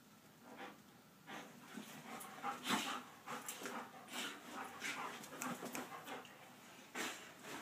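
Two German Shepherds play-fighting, giving irregular short dog vocal noises and panting, with the loudest burst a little under three seconds in and another sharp one near the end.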